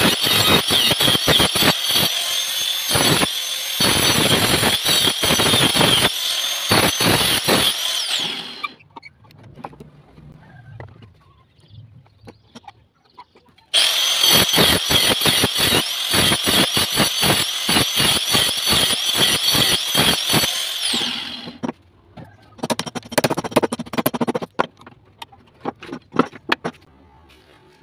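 Angle grinder with a cutting disc running at full speed while cutting a row of kerfs into a block of old wood, its high whine broken again and again as the disc bites in and out. It spins down about eight seconds in, starts again about five seconds later for a second run of cuts, and spins down again. A few knocks of the wooden block being handled follow near the end.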